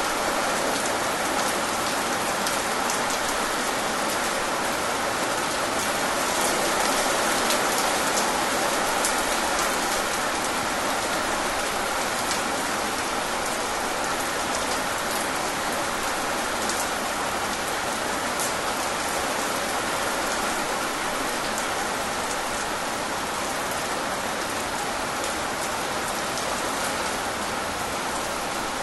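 Heavy rain falling steadily: a dense, even hiss with scattered sharp ticks of individual drops striking a surface.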